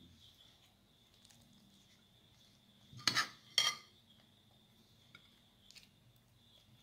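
Two sharp clinks of a metal spoon against a bowl, about half a second apart, roughly three seconds in; otherwise only a faint steady hum.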